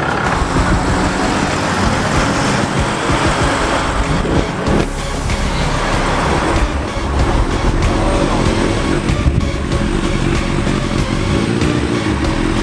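Car engines running as a line of cars drives slowly past, with motorcycles passing near the end.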